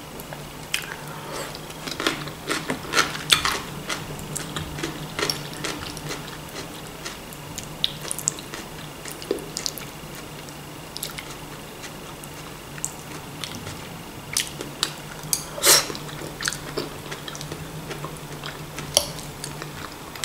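Close-up chewing and biting of fresh vegetable salad (lettuce, cucumber, radish, onion in oil): many short crisp crunches and mouth sounds, with the odd click of a metal fork on the plate. A steady low hum underneath.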